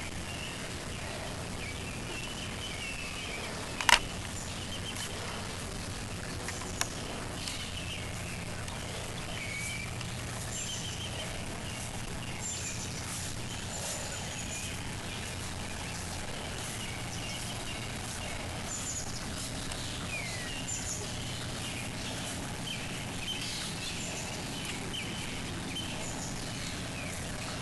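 Wild birds chirping and calling, many short calls over a steady low background hum, with a sharp click about four seconds in.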